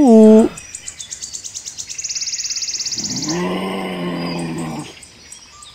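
A rapid high-pitched trill that speeds up into a dense buzz, followed by a low drawn-out animal call lasting about two seconds.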